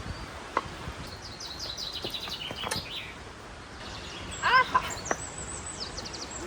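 Small birds calling: quick series of high chirps, with a loud cluster of chirps about four and a half seconds in, over steady outdoor background noise. A few short sharp knocks are heard as well.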